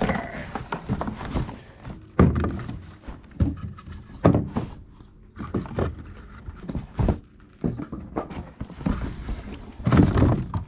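Unboxing handling noise: a cardboard box and its packaging shifted and pulled about, with irregular knocks and thuds. The strongest come about two seconds in, about four seconds in and near the end.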